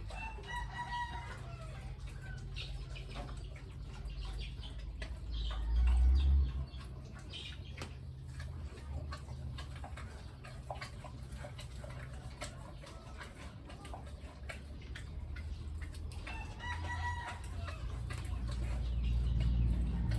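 Chickens clucking, with a rooster crowing twice: once near the start and once near the end. A steady low hum runs underneath, with a brief low rumble about six seconds in.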